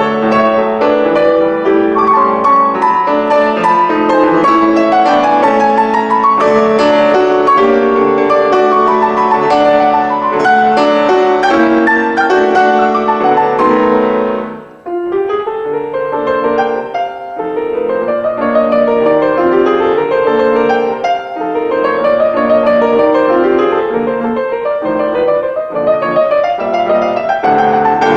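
Piano music: a full passage of chords and runs that breaks off briefly about halfway through, then resumes with repeated rising arpeggio figures.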